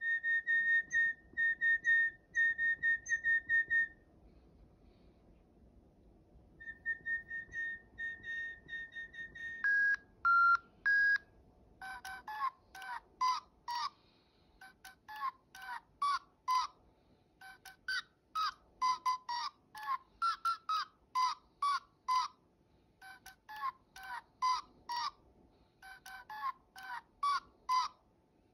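Digi Penguins electronic toy penguins sounding. First come runs of quick, high beeps on one pitch, then a short three-note figure about ten seconds in. After that comes a long stretch of rapid electronic chirps gliding up and down, several a second, like a tweeting song.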